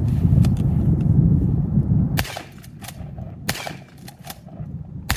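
Dickinson XXPR 12-gauge shotgun firing three shots, each about a second and a half apart, with lighter mechanical clicks between them. The shots follow a low rumble in the first two seconds.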